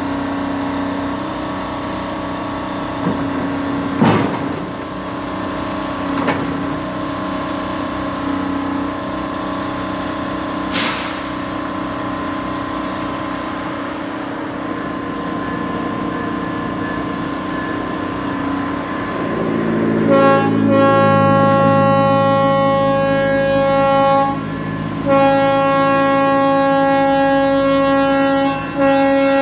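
A steady engine drone, then about two-thirds of the way in a locomotive air horn sounds a chord of several notes in long blasts with two short breaks.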